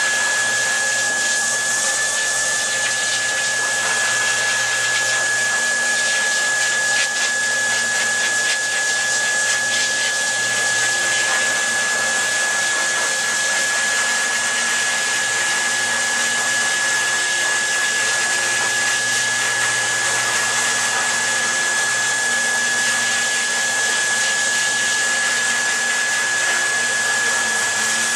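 Dog grooming dryer blowing steadily: a constant rushing air noise with a steady high motor whine.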